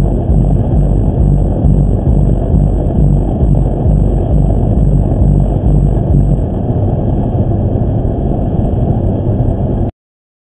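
Steady rumble of tyre and engine noise inside a car cruising at motorway speed, as picked up by a BlackVue dashcam's microphone and played back through its viewer software. It cuts off abruptly near the end.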